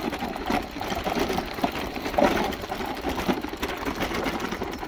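Tour Easy recumbent bicycle rolling over a loose gravel road: a steady crunch and clatter of the tyres on the gravel, full of small irregular clicks.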